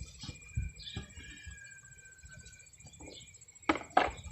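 Insects trilling steadily in high thin tones while a bird gives one long whistled note, over faint low bumps. Two sharp knocks come near the end.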